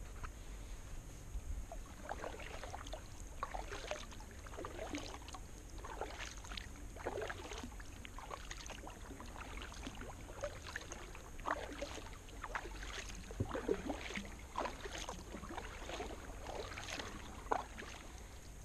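Kayak being paddled: the paddle blades dipping and water splashing and dripping off them in a continuous irregular run of small splashes.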